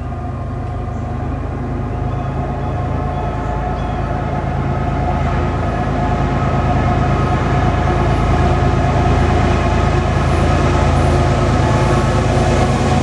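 Freight train led by GE diesel-electric locomotives (an ES44AC and AC44CWs) approaching, a steady engine drone and low rumble growing louder as it nears.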